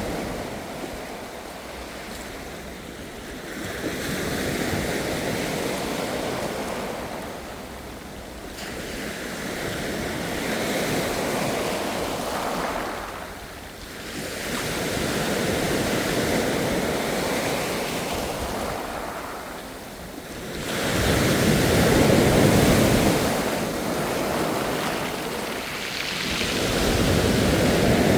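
Ocean waves breaking and washing in, rising and falling in slow surges about every five to six seconds, with the biggest surge about two-thirds of the way through.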